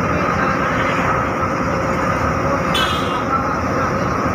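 Steady running noise of a moving bus heard from inside the cabin: engine and road rumble at an even level. A brief high-pitched sound cuts in about three seconds in.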